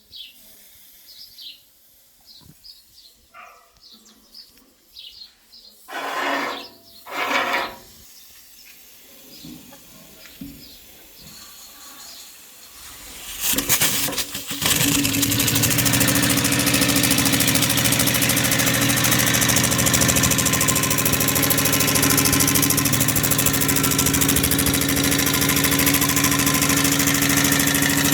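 Refrigerator compressor converted into a steam engine starting up about halfway through, then running steadily with a constant hum. Two short bursts of noise come before it starts, and faint bird chirps are heard early on.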